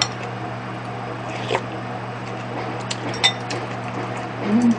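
Metal spoon clinking against a ceramic soup bowl while eating, a few separate clinks with the loudest, briefly ringing, about three seconds in. A short low hum of the voice near the end.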